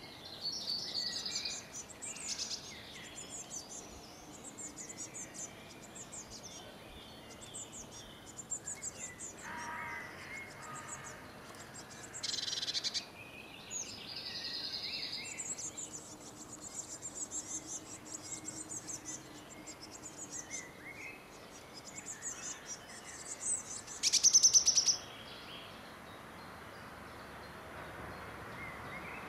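Songbirds singing and calling, many short high chirps and trills overlapping, with a brief louder burst of high calls near the end.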